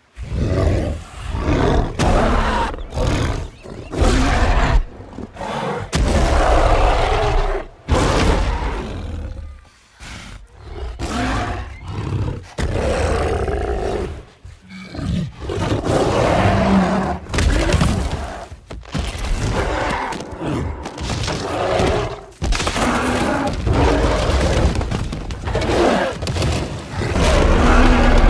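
Film sound effect of a giant gorilla, King Kong, snarling and roaring angrily in a long series of loud bursts with deep rumble, separated by short pauses. The loudest roar comes near the end.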